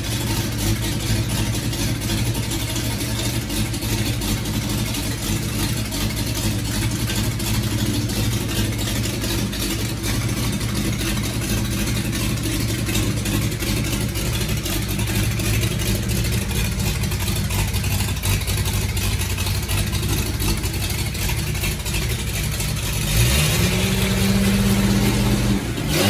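Rebuilt 292 Chevrolet inline six-cylinder engine running steadily at idle. About 23 seconds in the throttle is opened at the carburetor and the engine revs up quickly, holds the higher speed for about three seconds, then drops back toward idle.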